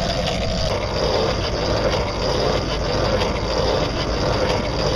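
A motorboat's engine running at speed as it passes, heard over steady wind and water noise.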